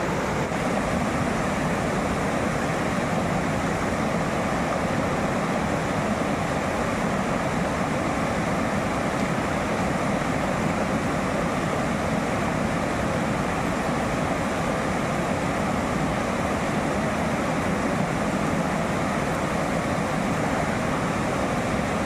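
Fast mountain river rushing steadily over rocks and rapids.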